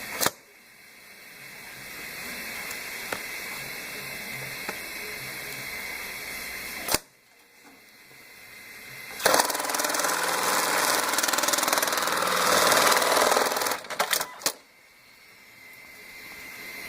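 Brother KE-434C industrial bar-tacking sewing machine. A couple of sharp clicks are followed by about four and a half seconds of fast machine stitching as it sews a tack, and the stitching ends in a few more clicks.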